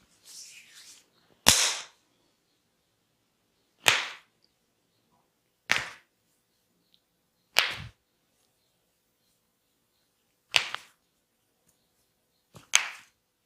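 Six sharp, loud slaps of a masseur's hands on bare skin during a vigorous body massage, one about every two seconds with silence between.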